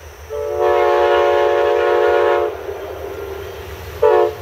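Multi-chime locomotive horn from an HO scale model's sound decoder: one long blast of about two seconds, then a short blast near the end, over a steady low rumble.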